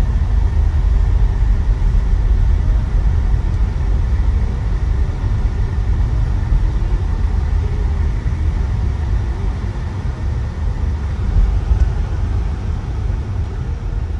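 Steady low rumble of a car on the move, heard from inside the cabin: engine and tyre noise on the road.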